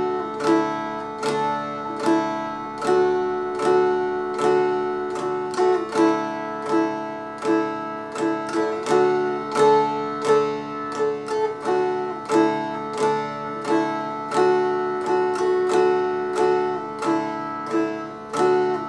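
Appalachian lap dulcimer strummed with a pick in a steady rhythm, about one stroke every three-quarters of a second, playing a simple tune fretted on the first string while the other strings ring on as a drone.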